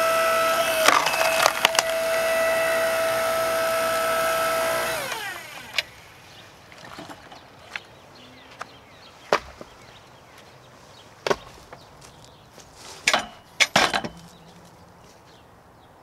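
A small 5-ton electric log splitter runs with a steady motor and hydraulic-pump whine while wood splits with sharp cracks about a second in. About five seconds in, the motor is switched off and its whine slides down in pitch and stops. Scattered wooden knocks follow.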